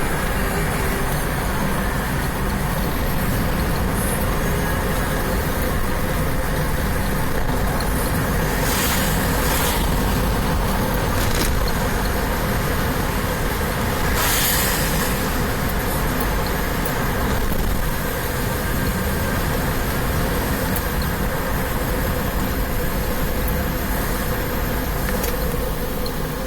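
Steady road-traffic noise with a deep rumble, and brief hissing swells about nine and fourteen seconds in.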